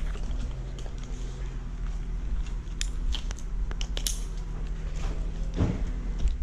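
Climbing noises on a eucalyptus trunk: scattered clicks, crackles and scrapes of gloved hands, bark and climbing hardware against the wood, with a brief rub a little after five seconds. Under them runs a steady low hum.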